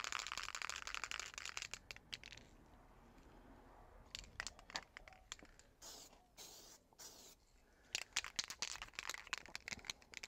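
PlastiKote grey primer aerosol can being shaken, its mixing ball rattling fast, for about two seconds. Then a few short hissing bursts of spray, and near the end the fast rattle of shaking again.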